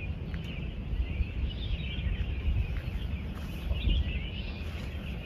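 Small birds chirping over a low, uneven rumble.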